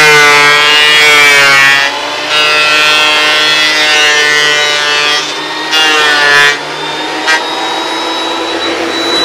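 Portable thickness planer running loud, its motor whining while the cutter head takes boards through. It is loudest while cutting, with two short dips, then runs on more quietly for the last third.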